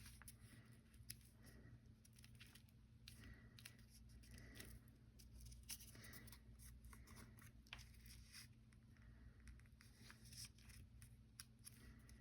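Faint paper handling: soft rustles and many light clicks as cut-out paper hearts are slid into a glued slot, over a steady low hum.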